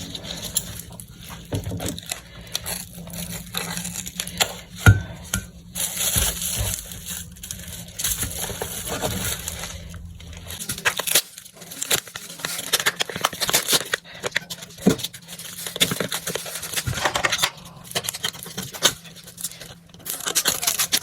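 Wrapping crinkling and tearing as chunks are unwrapped by hand, in irregular crackly bursts. A low hum underneath stops about halfway through.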